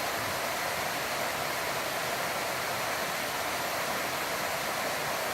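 An 8 m waterfall rushing steadily, a constant hiss of falling water.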